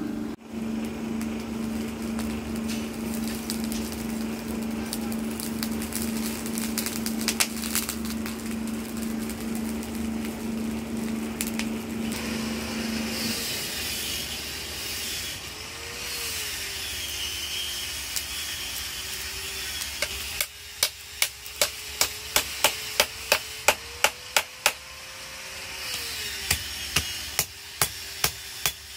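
Forge blower motor humming steadily, then shutting off about halfway through. Near the end comes a run of about a dozen sharp metal taps, roughly two a second, as a red-hot grass-knife blade is worked over a steel bending jig.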